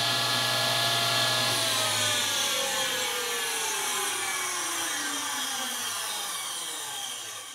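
A well-tuned table saw is running steadily. About one and a half seconds in, it is switched off, and the motor and blade coast down with a falling whine that slowly fades.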